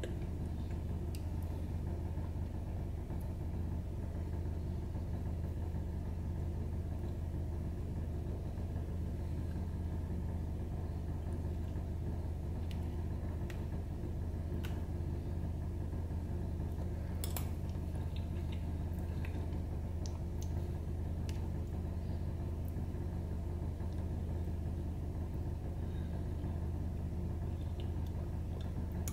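A steady low hum runs throughout, like an appliance or electrical hum in a small room. Faint scattered clicks and scrapes of a metal spoon against a plastic takeaway tub come and go over it, the sharpest about halfway through.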